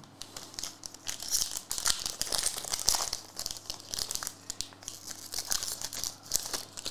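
Foil wrapper of a 2022 Upper Deck Marvel Fleer Avengers trading-card pack being torn open and crinkled by hand: a dense run of crackling from about a second in until just before the end.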